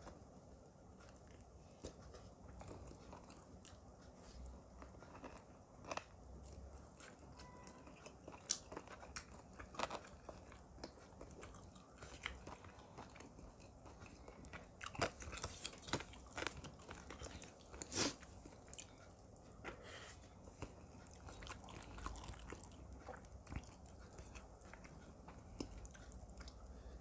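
Close-miked chewing and biting of food, with short crisp crunches scattered throughout and thickest a little past the middle.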